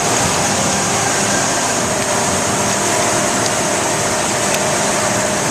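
Steady factory machinery din: a constant hum with several held tones and a high hiss, with a couple of faint clicks about three and a half and four and a half seconds in.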